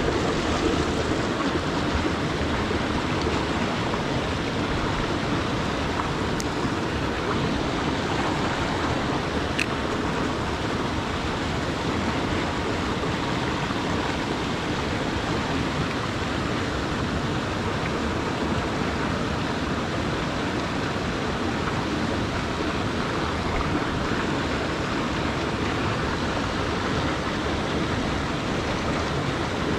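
Mountain creek water rushing steadily.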